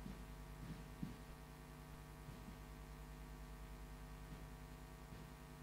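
Low, steady electrical mains hum with a pulsing low buzz, carried through the hall's audio feed, with a few faint soft knocks.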